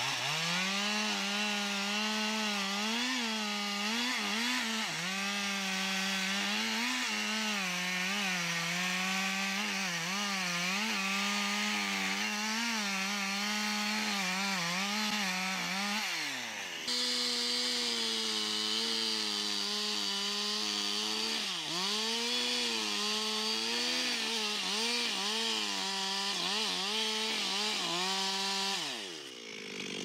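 Two-stroke chainsaw at full throttle, cutting through a large tree trunk. The engine pitch wavers as the chain loads up in the wood, briefly drops and picks up again about halfway, and falls near the end as the throttle is let off.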